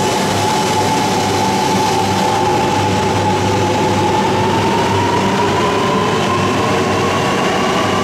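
E3 series Tsubasa Shinkansen pulling out along the platform. Its motors give a whine that rises steadily in pitch as the train gathers speed, over the steady rush of the cars rolling past.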